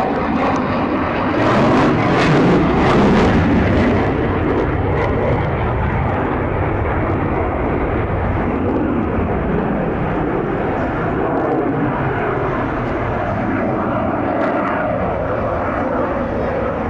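Engine of a fixed-wing aircraft flying past overhead, a loud steady drone that swells between about two and four seconds in and then holds.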